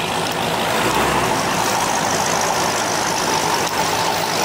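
A motor vehicle engine running steadily at idle.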